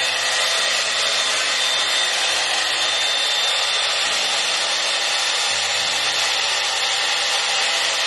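TYMO Volumizer hot air brush (a round blow-dryer brush) running on its cool setting: a steady rush of blown air with a thin, high motor whine as it is drawn through the hair.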